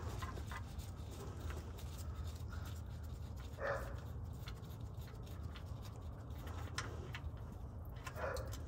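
Steady low background rumble with faint scattered clicks of an oil drain plug being unscrewed by hand from the oil pan, and two brief soft sounds, one about four seconds in and one near the end.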